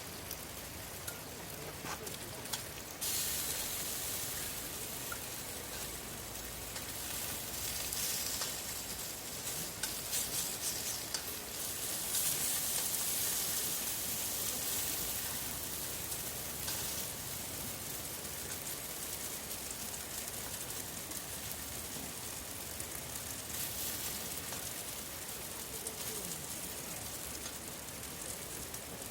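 Food sizzling in a hot pan: the sizzle starts suddenly about three seconds in, then gradually settles to a steadier, quieter hiss.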